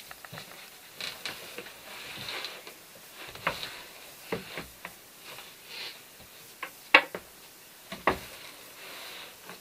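Handling noise from an old car bucket seat being turned over on a cloth-covered bench: rustling of the cover and the cloth under it, with scattered knocks and clicks from the seat's metal frame, the two sharpest about a second apart near the end.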